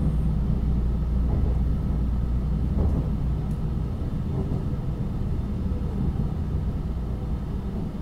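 Tokaido Shinkansen Nozomi train running, heard inside the passenger cabin: a steady low rumble.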